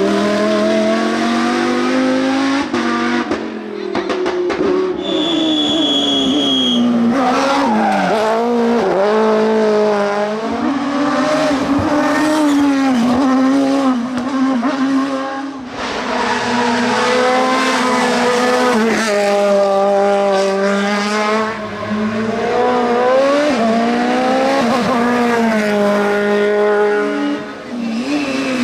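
Race car engines revving hard, the pitch climbing and dropping again and again as they accelerate, shift gears and brake for corners. There is a brief high-pitched squeal about five seconds in.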